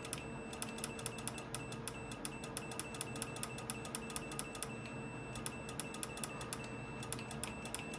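Mercedes-Benz fuel pump cut-off relay on the test bench clicking rapidly and evenly, about six faint clicks a second, under a faint steady high beep. The relay is misbehaving on its test signal.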